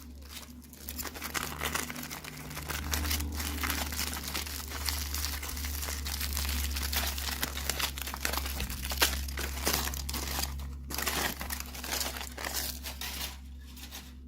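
Plastic toy packaging being crinkled and handled, a dense run of crackling with tearing sounds, pausing briefly near the end.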